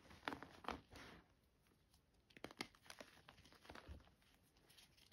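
Reformed gym chalk blocks being squeezed and broken apart in the hands, giving quiet, dry crunches and crackles that come in small clusters with short pauses between them.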